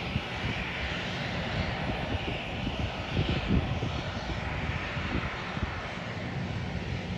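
ANA narrow-body jet airliner's turbofan engines running steadily as it rolls along the runway, a continuous jet roar with a hissing edge.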